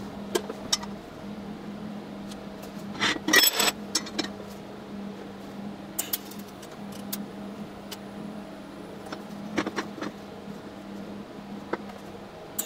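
Scattered clicks and clinks of steel parts being handled and set down on a steel welding bench, with a dense rattling burst about three seconds in, over a steady low hum.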